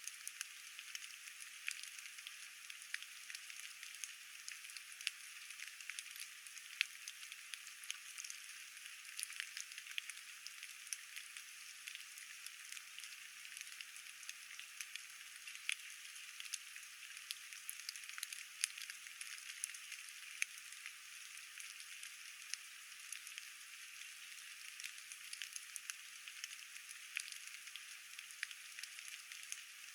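Rain falling: a steady, faint hiss full of many small, irregular drop ticks.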